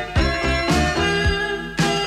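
Music with a steady beat of about two drum strokes a second, coming through an FM radio tuner from a broadcast station received with a strong stereo signal.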